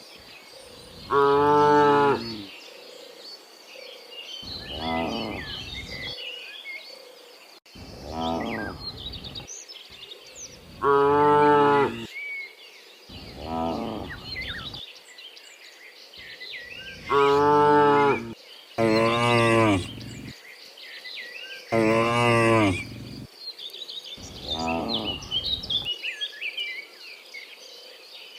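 A herd of cows mooing, about nine separate calls of a second or two each, some loud and near, others fainter, with small birds chirping between them.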